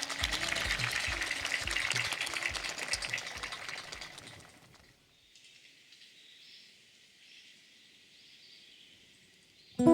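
Audience applauding, fading out about halfway through and leaving near quiet, with an acoustic guitar coming in right at the very end.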